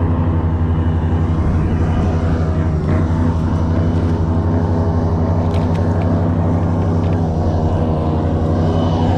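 Airboat's engine and propeller running at a steady pitch, loud and unbroken, with a strong low engine note.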